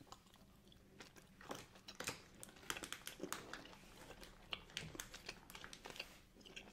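Close-miked chewing of a wine gum, the firm gummy candy worked in the mouth as an irregular run of short clicks and smacks.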